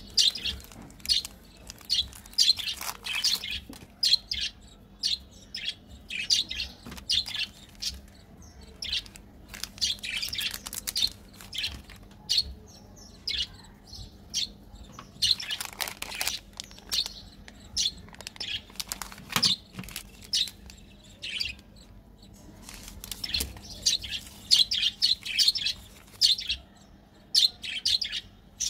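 Plastic candy wrappers crinkling and crackling in the hands as sweets are unwrapped, in irregular bursts.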